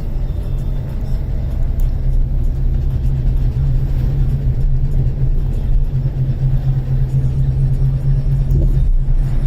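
Steady low rumble of a car driving, heard from inside the cabin: engine and road noise without change in speed.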